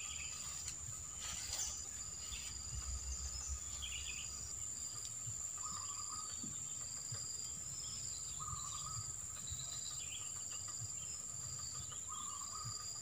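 Insects trilling: one continuous high-pitched trill, with shorter calls at lower pitches starting and stopping every few seconds. A faint low rumble runs underneath.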